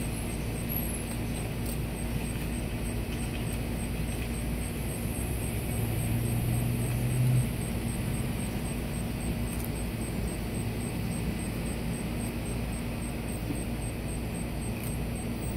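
Steady low outdoor background rumble with a faint hum. A louder low drone swells about six seconds in and stops about a second and a half later.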